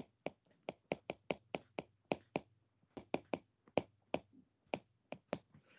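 Stylus tapping and clicking on a tablet's glass screen while handwriting: a string of short, sharp clicks, irregular at about three a second, with a brief pause near the middle.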